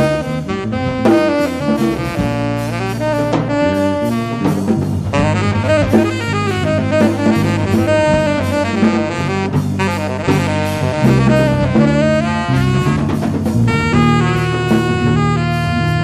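Live jazz: a saxophone plays a run of many notes over electric bass and a drum kit with cymbals.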